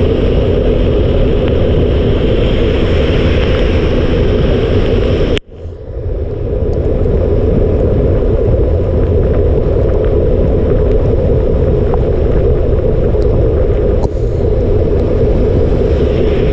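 Wind and rain buffeting the microphone of a camera mounted on a bicycle riding through heavy rain: a loud, steady rumble. It cuts out abruptly about five seconds in and builds back over the next second.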